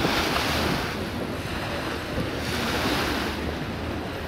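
Distant roar of an Airbus A380's four jet engines on final approach, mixed with wind rushing on the microphone. It swells twice, at the start and again about three seconds in.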